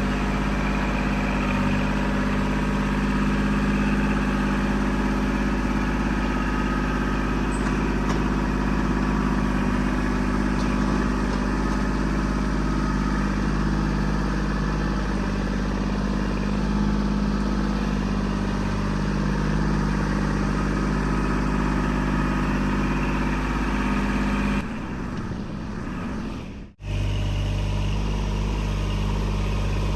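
Kubota L2501 compact tractor's three-cylinder diesel engine running steadily. Near the end the sound drops for about two seconds, cuts out for an instant, then comes back.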